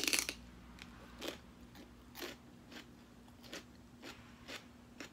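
A person biting into celery topped with chicken salad: one loud crunch right at the start, then steady, close-up crunchy chewing, a little under two chews a second.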